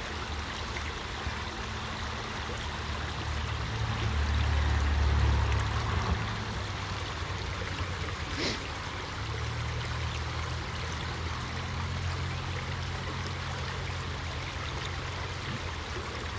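Creek water rushing and trickling over rocks in a steady wash of noise, with a low rumble underneath that swells about a quarter of the way in and again past the middle. There is one sharp click a little after halfway.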